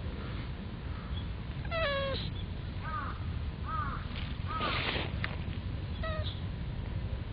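Cat meowing several times: a longer falling meow about two seconds in, then three short rising-and-falling mews, a short noisy burst near five seconds, and one more brief meow just after six seconds, over a steady low background rumble.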